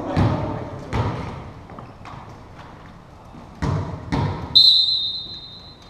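A volleyball thudding several times, echoing in a gym. It is followed by a referee's whistle, one sharp held blast of about a second starting about three-quarters of the way through, which is the loudest sound.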